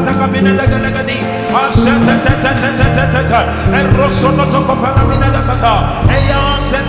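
Loud live church worship music with sustained bass and keyboard notes, with melodic singing or vocal lines rising and falling over it.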